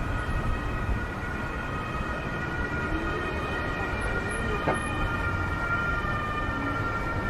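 Several steady high-pitched tones held together over city street noise, with one short knock about two-thirds of the way through.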